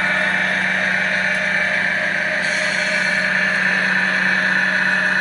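Large radio-controlled model semi-truck's engine running steadily under load as it tows a full-size SUV, a constant drone that holds one pitch.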